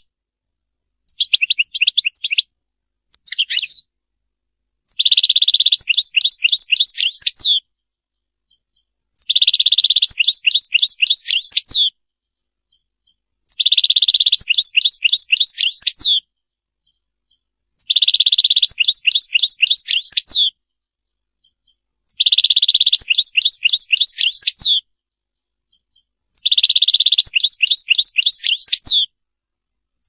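European goldfinch singing. After two short phrases, the same song phrase repeats six times, about every four seconds, with silence between: each phrase is a buzzing trill followed by a quick run of sharp notes.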